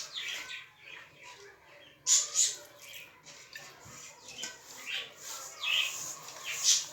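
A bird chirping and squawking in short, sharp calls, the loudest about two seconds in and a cluster of calls near the end.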